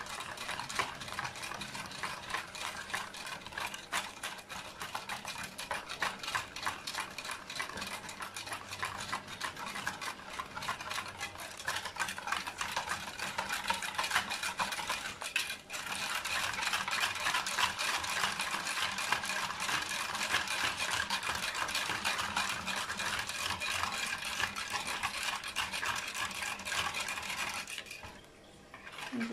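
Wire balloon whisk beating a thin batter in a plastic bowl: a quick, steady run of scraping and clicking as the wires strike the bowl. It stops about a second before the end.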